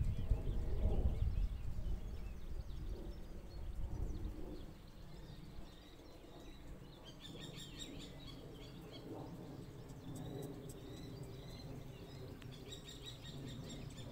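Wind buffeting the microphone for the first four to five seconds, then quieter open-air ambience with small birds chirping and a couple of quick, rapid trills.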